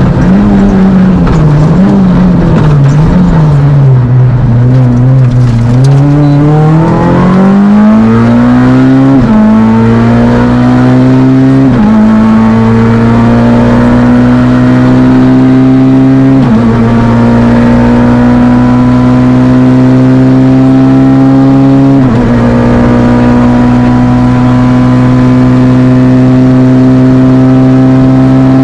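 Fiat Panda Kit Car rally car's engine heard from on board, loud throughout. The revs rise and fall through a slow section, then the car accelerates hard, with four upshifts each briefly dropping the pitch, and ends holding high revs.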